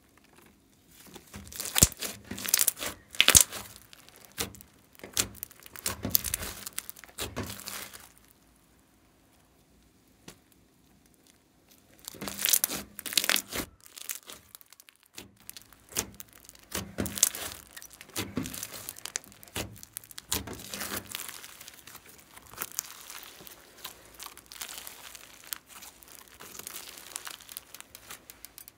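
Slime full of air bubbles being squeezed and stretched by hand, crackling and popping as the air pockets burst, in clusters of crackles with a quiet pause of a few seconds partway through.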